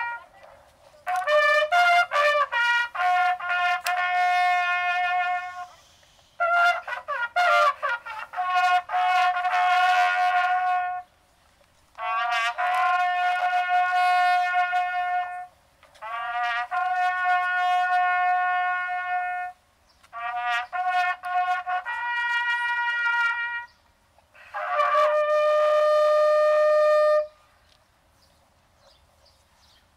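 Solo brass instrument sounding a slow call in about six phrases of held notes with short pauses between them, then stopping a few seconds before the end.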